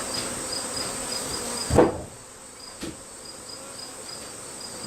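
A steady insect chorus: high, rhythmic chirping repeating a few times a second over a constant high hiss. A single loud thump a little under two seconds in, and a lighter knock about a second later.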